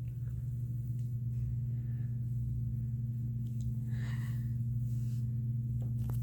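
A steady low hum, one constant tone with a fainter overtone above it, with a faint short sound about four seconds in and a couple of faint clicks near the end.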